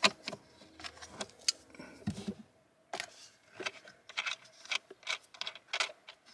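Light, irregular metal clicks, taps and scrapes of a hand wrench and a lead-acid battery's terminal clamp being loosened and worked off the post, as the battery is disconnected.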